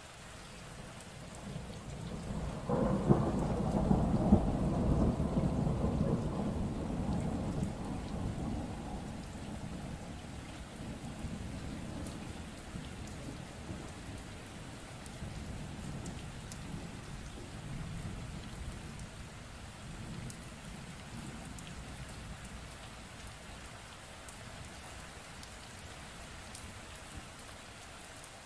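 Steady rain falling, with a thunderclap about three seconds in whose rumble rolls on and slowly fades away over the next twenty seconds or so.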